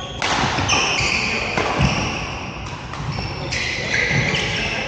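Badminton play in a sports hall: sharp racket hits and footfalls thudding on the court, several of them, with high squeaking tones from the floor that start and stop abruptly.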